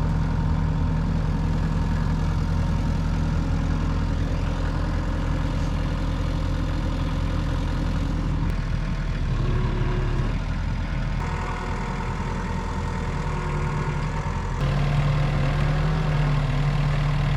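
Sawmill's engine running steadily without cutting, its pitch and load shifting a few times.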